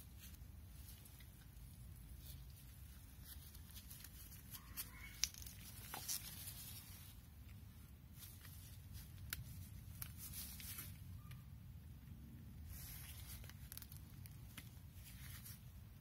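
Faint rustling and a few small clicks and taps from gloved hands handling a tube of thread locker and a caliper bolt, over a low steady rumble. A sharp click about five seconds in is the loudest.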